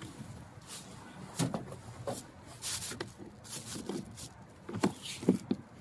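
Scattered light clicks and knocks from hands handling a small portable petrol generator and its fittings, with no engine running.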